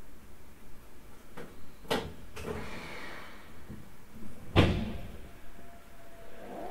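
Inside a Keisei 3000-series commuter train car: a couple of short clicks, then a heavy thud about four and a half seconds in, the sliding doors closing before departure.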